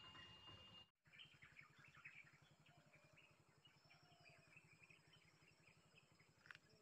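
Near silence: faint forest ambience with scattered small bird chirps, after a brief dropout about a second in.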